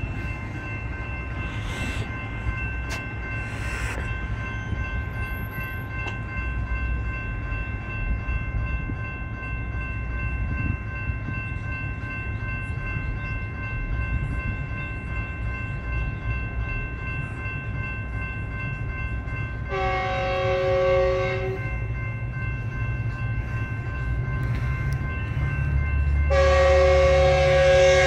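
Metrolink commuter train approaching: its locomotive's multi-note air horn sounds a blast of about two seconds roughly twenty seconds in, then a louder, longer blast near the end, while a low engine and rail rumble builds as the train draws closer.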